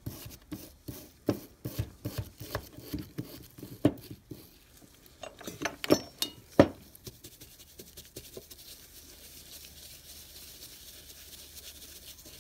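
Handling and rag-wiping of a metal air-drill housing on a workbench: scattered knocks, clinks and rubbing, the loudest knocks about six seconds in. After that the noises stop and only a faint steady hiss remains.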